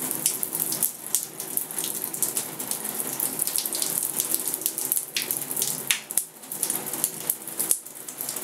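Boiling water pouring from a pot over a synthetic wig set in curlers and splashing down into the shower, heat-setting the curls. The stream falters briefly about six seconds in and again near eight seconds.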